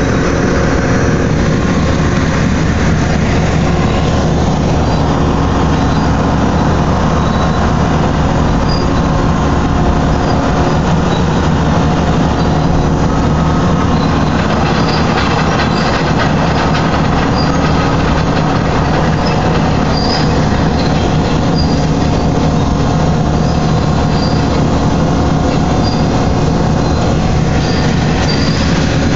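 A big hydraulic tilting truck dumper running with its platform raised: a loud, steady heavy-machinery drone, with short high metallic squeaks now and then, more often in the second half.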